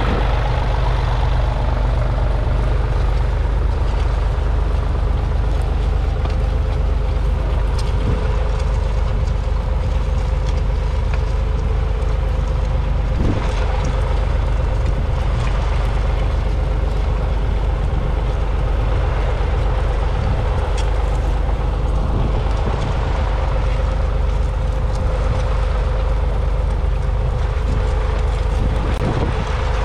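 Ford 4600's 3.3-litre three-cylinder diesel engine running steadily under load, pulling a mounted plough through the soil, with a few sharp knocks.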